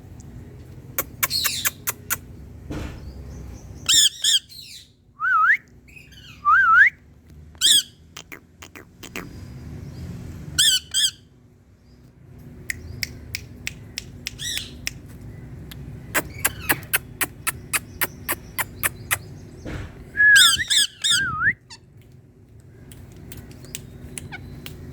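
Indian ringneck parakeet giving short harsh screeching calls and a few whistled notes that glide up and down, with runs of quick sharp clicks between them.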